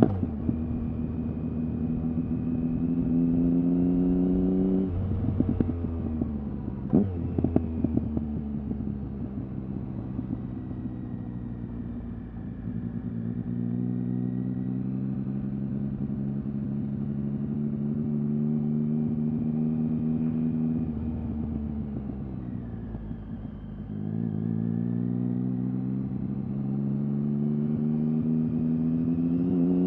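Triumph Speed Triple R's inline three-cylinder engine through an Arrow exhaust with the dB-killer baffles removed, heard from the rider's seat on the move. It closes off the throttle with crackling pops on the overrun, blips up sharply twice on downshifts, and pulls back up through the revs, climbing near the end.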